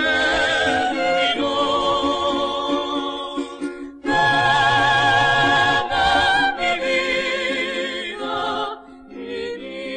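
Vocal quintet singing Venezuelan folk music in close harmony, several voices holding chords with vibrato. The phrase breaks briefly about four seconds in, and the singing drops quieter near the end.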